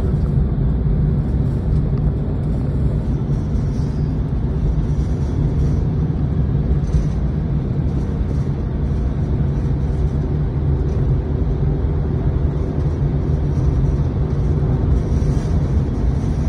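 Steady low rumble of a car's engine and tyres heard from inside the cabin while driving at an even speed on an open road.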